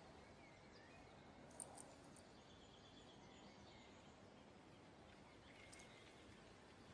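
Near silence: faint steady background ambience, with a few faint high chirps about one and a half seconds in and again near the end.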